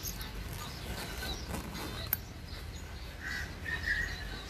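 A crow cawing twice near the end, over a low steady rumble, with a single sharp click about two seconds in.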